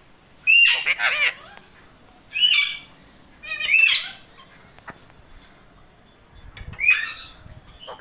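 Alexandrine parakeets giving four loud, harsh calls with sliding pitch. The first, about half a second in, is the longest, and the last comes near the end.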